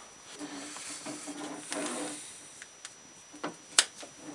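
Clear vinyl beer line being handled and rubbed, followed by a few sharp clicks near the end, the sharpest as the line is snipped in half with a hand tool.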